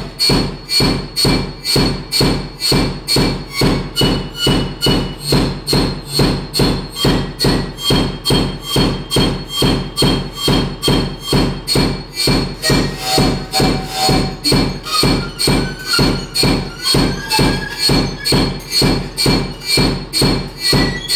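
Live electronic music from patched synthesizer modules: a steady, even low throbbing pulse about two times a second, with thin high tones held for a few seconds at a time over it.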